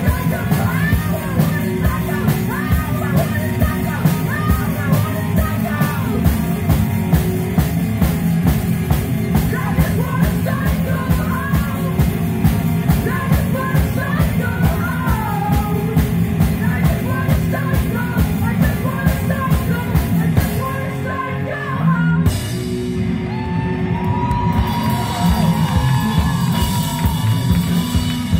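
Live rock duo playing: sung vocals over electric guitar and a drum kit keeping a steady beat on the cymbals. About 22 seconds in the singing and cymbals drop out, leaving a held guitar note, then the drums build again near the end.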